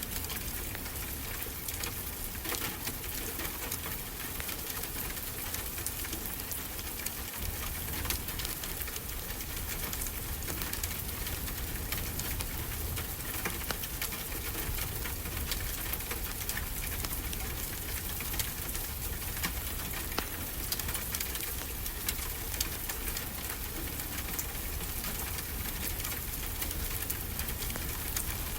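Wood fire crackling in a fireplace, with many small sharp pops, over a steady low wash of ocean surf.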